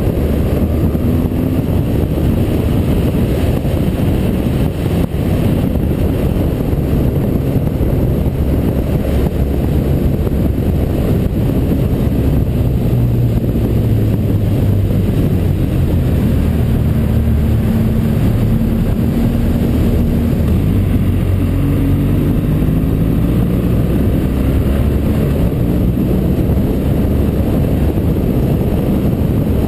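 BMW motorcycle engine running under way, its pitch rising and falling with the throttle through the bends, over a steady rush of wind noise.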